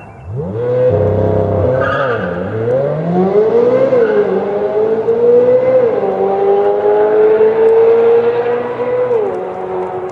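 2022 Chevrolet Corvette C8 Z06's flat-plane-crank V8 accelerating hard. Its pitch climbs in each gear and drops sharply at each upshift, about every two seconds. It screams, with a Ferrari-like sound.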